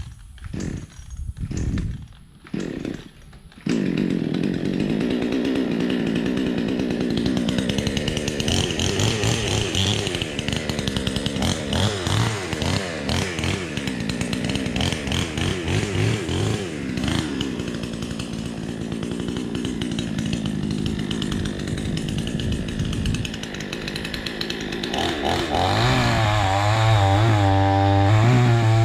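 Gas chainsaw cutting through a tree trunk: a few short bursts of engine, then from about four seconds in it runs continuously under load, its pitch rising and falling as it bites. Near the end the engine pitch climbs higher and wavers.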